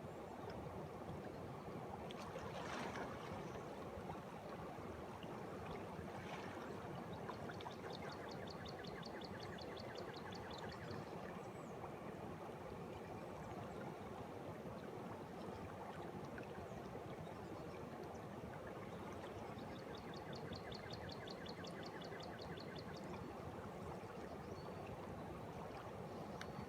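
Spring water welling up and flowing steadily, a constant rush of bubbling water. Twice, a small bird gives a rapid, evenly pulsed trill lasting about three seconds.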